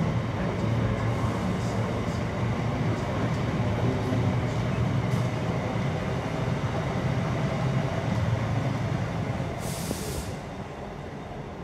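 Freight wagons rolling past on the rails: a steady rumble of wheels on track that falls away as the last wagon goes by about ten seconds in, with a short hiss at the same moment.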